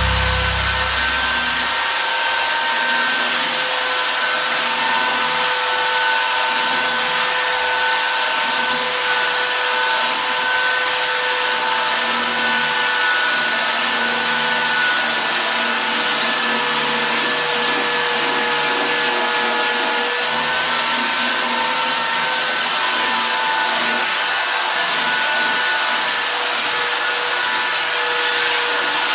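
Handheld electric sander running steadily on a wooden plank floor: a constant motor whine over the hiss of abrasive on wood.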